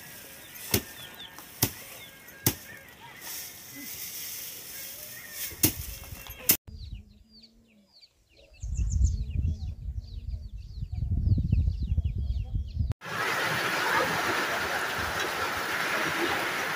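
A few sharp chopping strikes, about a second apart. After a cut come small high bird chirps over low rumbling, and then a steady rushing hiss like running water or rain.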